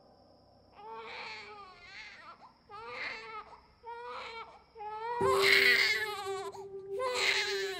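Newborn baby crying in a string of short wails about once a second, starting about a second in, with the longest and loudest wail about two-thirds of the way through.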